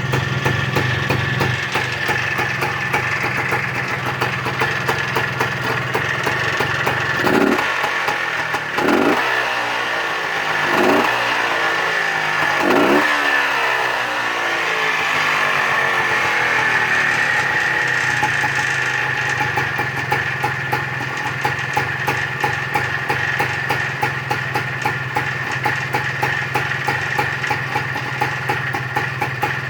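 Montesa Cota 247 trials motorcycle's single-cylinder two-stroke engine running at idle, blipped four times in quick succession with the throttle, then settling back to a steady idle. Revived after twenty years standing.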